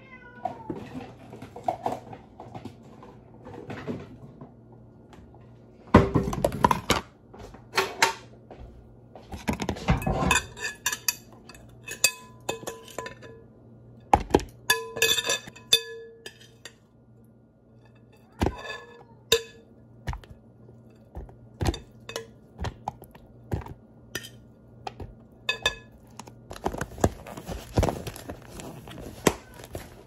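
Kitchen clatter of containers and dishes being knocked, set down and clinked during a fridge clean-out, with a cat meowing now and then. Several longer rustling stretches come about six seconds in, around ten seconds in, and near the end.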